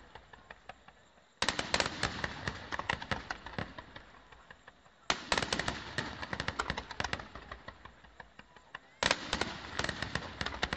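Fireworks bursting in volleys: three sudden salvos of rapid bangs and crackles, about four seconds apart, each thinning out and dying away.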